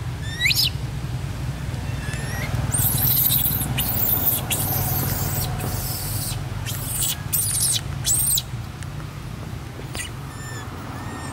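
Baby monkey crying in a run of shrill, high-pitched squeals and shrieks that start about three seconds in and stop about eight and a half seconds in, after a couple of short rising chirps.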